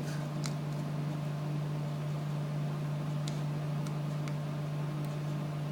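Steady low hum with a few faint, light clicks scattered through it.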